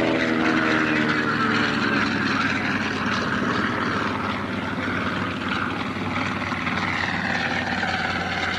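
Twin-engine piston propeller airplane running steadily as it moves along the runway, its engine and propeller noise fading slightly over the seconds.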